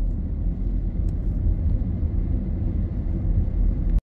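Steady low rumble of a car driving, tyre and engine noise heard from inside the cabin. The sound cuts out for a moment near the end.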